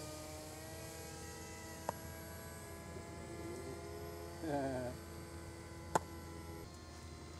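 Model airplanes flying overhead, their motors and propellers giving a steady, distant hum in several pitches at once. A short warbling sound comes about four and a half seconds in, and there are two sharp clicks, the louder one about six seconds in.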